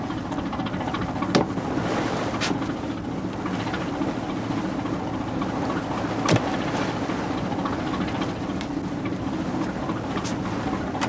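Small coastal motor freighter under way: a steady low hum from its diesel engine, with wind and water noise. A few sharp knocks break in, the loudest about a second in and again past the middle.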